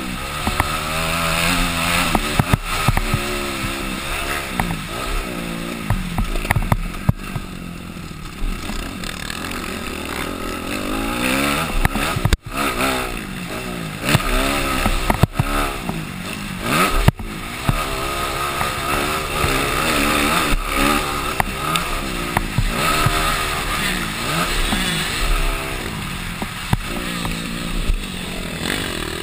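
Motocross bike engine ridden hard, its pitch repeatedly rising and falling as the throttle is opened and shut and gears change. The sound drops out sharply for an instant about twelve seconds in, and again about seventeen seconds in.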